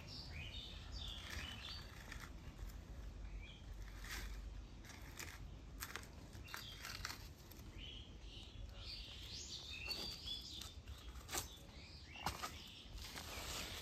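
Birds chirping in the background, faint, in two short spells near the start and past the middle, with scattered sharp clicks and ticks in between.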